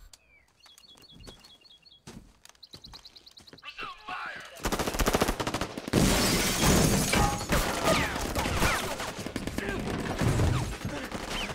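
Film soundtrack: heavy gunfire, many shots in rapid succession, breaks out a little under halfway through after a quieter opening with a few short high chirping tones.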